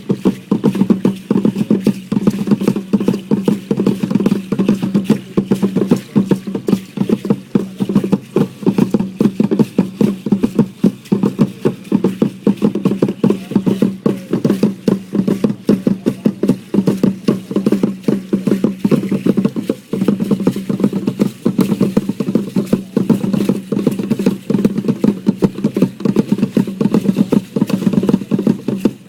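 Percussion for a pre-Hispanic dance: fast, unbroken rattling and beating with no pause, over a steady low hum.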